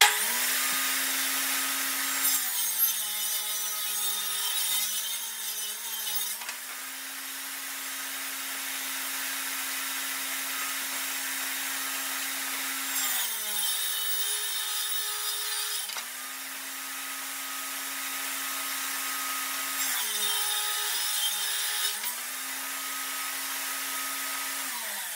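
Portable table saw running and ripping old board-and-batten lumber. The motor's whine drops and bogs under load through three rip cuts, about two to six seconds in, around fourteen seconds and around twenty-one seconds, and climbs back to free speed between them.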